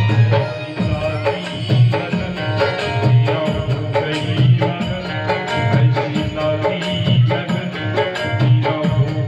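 Devotional bhajan music from a satsang group: sustained melodic tones over a steady hand-drum beat, about three strokes every two seconds.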